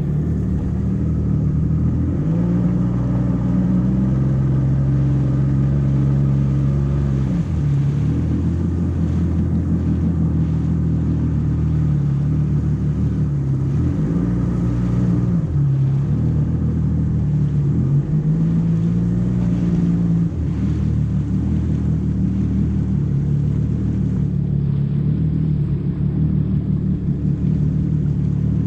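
Jet ski engine running steadily. Its pitch steps up and down several times as the throttle is opened and eased, and settles lower about twenty seconds in.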